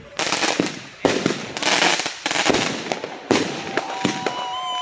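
Consumer ground firework going off on a lawn, with a string of loud bursts about a second apart and hissing and crackling between them. Near the end a steady whistle tone joins in.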